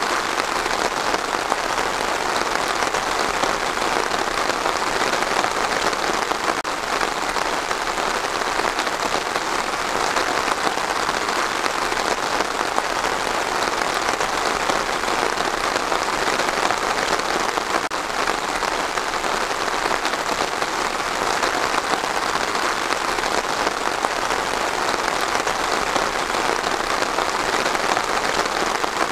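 Steady rain falling on trees, an even, unbroken hiss of drops.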